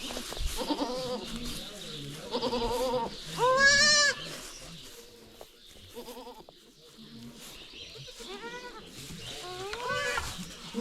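Goats bleating, a doe with her newborn kids: about six separate calls, the loudest and longest about four seconds in, with a wavering pitch.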